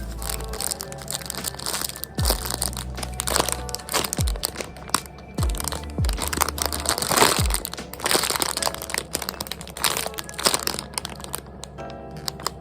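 Lofi background music with a steady beat and deep falling bass notes, over plastic packaging crinkling and crackling as squishy toys are handled.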